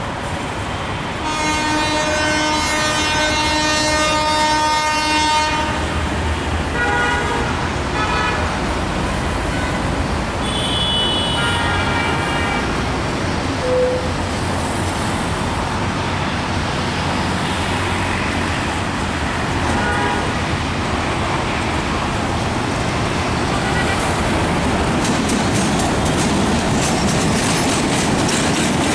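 Metre-gauge diesel locomotive sounding its horn as it approaches: one long blast of about four seconds, then several shorter toots, over the steady rumble of the engine. Near the end the wheels clatter over the rail joints as the locomotive and coaches pass close by.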